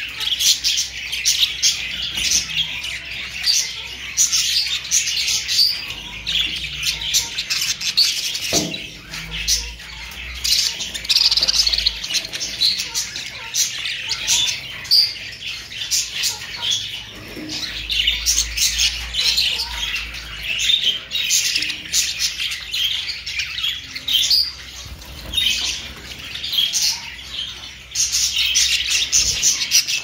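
A flock of budgerigars chirping and chattering nonstop, many short warbling calls overlapping.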